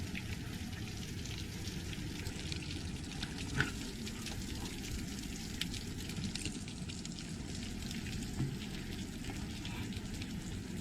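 Water dripping from the trees and light rain falling on forest leaves: a steady hiss scattered with small ticks, two of them a little louder.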